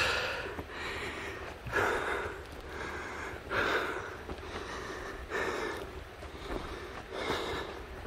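A hiker breathing heavily close to the microphone, a strong breath about every two seconds with softer ones between, while walking along a trail.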